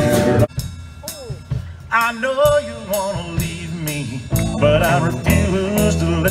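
Live band music: a full country band with fiddle and guitars cuts off about half a second in, and a slower song begins, with a sliding, wavering lead melody over a steady bass line.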